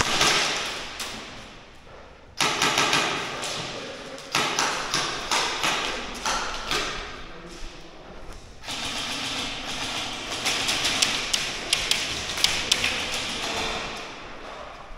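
Airsoft guns firing in a large echoing hall: rapid bursts of shots with sharp cracks and knocks, like BBs striking plywood. Bursts start at once, about two and a half seconds in, about four seconds in, and again about nine seconds in, the last running on with many separate cracks.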